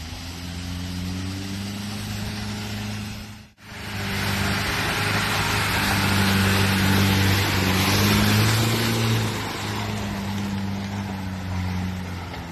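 Overloaded pickup truck's engine pulling at low, steady revs through mud. Sound drops out for a moment about three and a half seconds in, then the engine comes back louder and harsher with more hiss, easing off again near the end.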